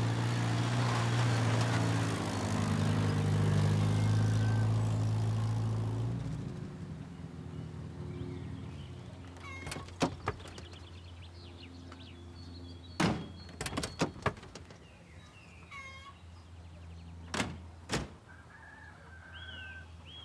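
Vintage saloon car's engine running as it pulls up, then dropping to a quieter idle about six seconds in. Car doors open and slam shut several times from about ten seconds in, in quick clunks.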